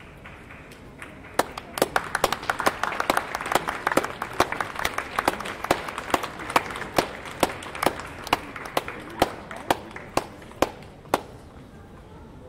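Audience applauding: a crowd's clapping starts about a second in, swells and fades again, with one person's sharp claps close by at about two to three a second that stop near the end.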